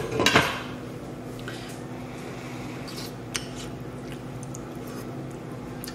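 A metal spoon clatters against a cooking pot at the very start. A few faint clicks follow over a steady low kitchen hum.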